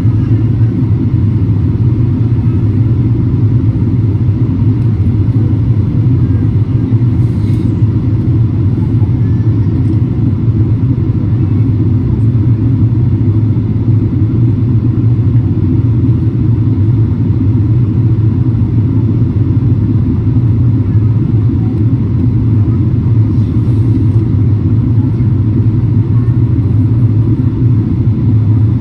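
Jet airliner cabin noise heard from a window seat: a steady low rumble of engines and airflow, unchanging throughout.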